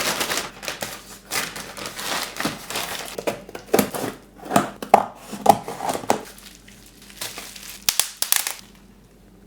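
Phone retail-box packaging being opened by hand: paper and plastic crinkling and tearing in irregular rustles, busiest in the middle, dying away about nine seconds in.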